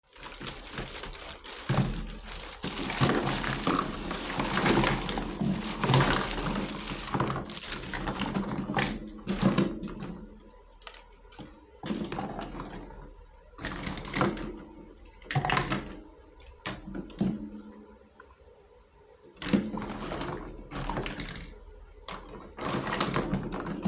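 Unboxing of a miniature toy kitchen set: packaging crinkles and crackles for the first half, then the small toy pieces click and knock one at a time as they are handled.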